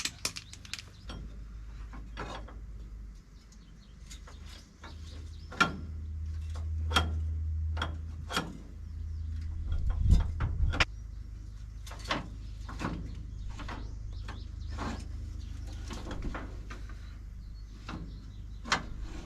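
Baler floor chain being fed by hand through its idlers: irregular sharp metal clinks and knocks of the chain links, the loudest about ten seconds in, over a low steady rumble.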